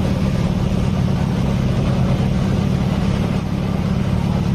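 Motorcycle engine running steadily at idle, an even low hum with no change in speed.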